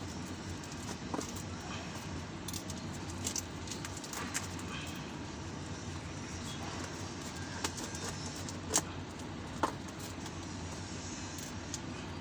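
Light clicks and taps of objects being handled, scattered irregularly over a steady low background hum, with two sharper ticks about nine and ten seconds in.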